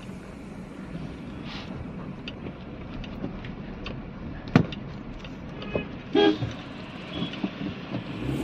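Car running, heard from inside the cabin as it pulls out onto a slushy road: a steady low engine and road rumble with scattered clicks and knocks. About six seconds in, a short horn toot sounds.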